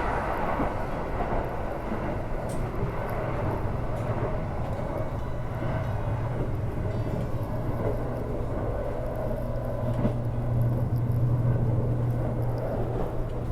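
Steady running rumble of a vehicle in motion, with a low hum held throughout, growing a little louder about ten seconds in.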